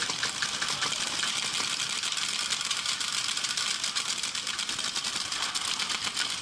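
Many paintball markers firing at once during a paintball game: a continuous rattle of rapid popping shots with no break.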